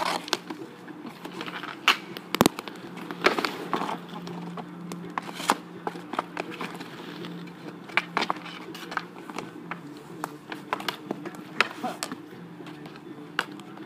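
Roller hockey on asphalt: a string of sharp clacks and knocks from sticks, shots and saves against the goalie's pads and the net, with inline skate wheels rolling. A steady low hum runs underneath.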